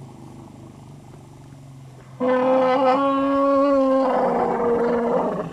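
Asian elephant calling: a low, drawn-out call, then about two seconds in a much louder, higher-pitched call held for about three seconds, dropping a little in pitch before it fades.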